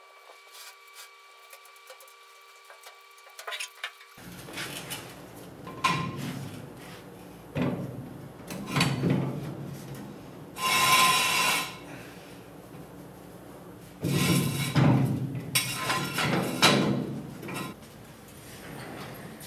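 Workshop handling noises: irregular knocks, thuds and scrapes as a painted steel VW Karmann Ghia floor pan is lowered to the floor and moved about. They start after a quiet first few seconds, and the loudest is a scrape of about a second near the middle.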